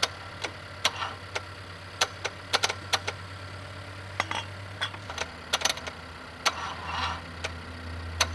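Irregular sharp clicks and snaps from jury-rigged jumper-cable wiring at a marine engine's starter as the connection is made and broken, over a steady low engine hum. The starter is getting too little current to crank the engine, and the wires are running hot.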